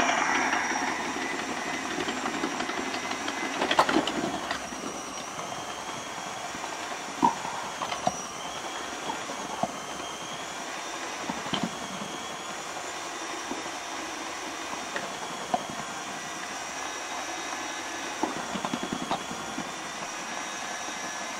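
KitchenAid stand mixer driving its 5KSM2FPA food processor attachment with the 8 mm dicing kit, running steadily with a faint high whine while tomatoes and red peppers are pushed through and diced. A few sharp knocks come through the run.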